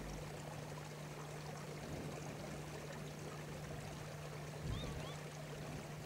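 Faint, steady outdoor ambience: an even rushing noise like a distant stream, with a low steady hum under it. Two short, faint, high rising chirps of a small bird come about five seconds in.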